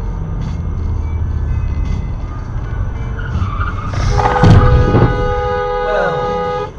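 Road noise of a car driving at freeway speed, then about four seconds in a loud sudden burst of noise followed by a car horn held for about two seconds.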